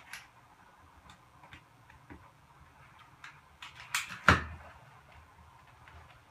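Scattered light clicks and rustles of a rubber shower pan liner being handled and slit with a utility knife over the drain bolts. Two sharp knocks in quick succession about four seconds in, the second the loudest.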